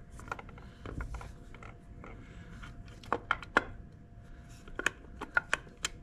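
Scattered light metallic clicks and taps as an HEI distributor is handled and worked down into its bore on a small-block Chevy engine, with small clusters of clicks about three seconds in and again near the end.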